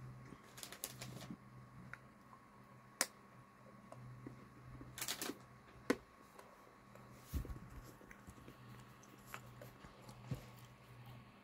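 Faint, scattered clicks and taps a second or more apart, one of them a duller knock, over a low steady hum.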